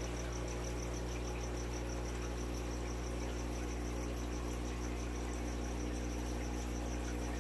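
Steady electrical hum with several low pitches held constant, and a faint high whine above it that pulses evenly several times a second; nothing else happens.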